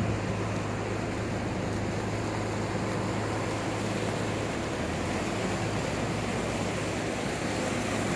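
Muddy floodwater rushing down a roadside ditch: a steady rushing noise, with a low steady hum underneath.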